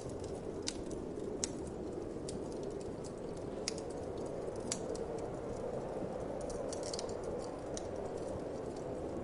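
Wood fire crackling: sharp, irregular pops, a few louder ones and a quick cluster about seven seconds in, over a steady low rush of wind.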